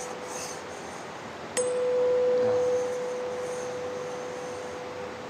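A 512 Hz tuning fork (the note C) ringing a steady pure tone at the mouth of a PVC resonance tube. It is struck again with a sharp tap about one and a half seconds in, rings loud for about a second, then fades off.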